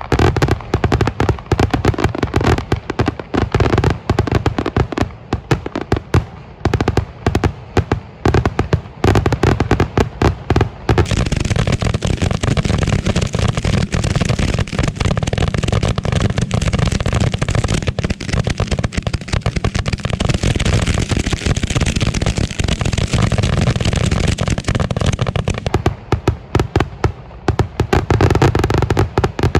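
Fireworks finale: aerial shells and salutes firing and bursting in rapid, overlapping succession, so dense from about ten seconds in until near the end that the blasts merge into one continuous barrage, then thinning to separate rapid bangs again.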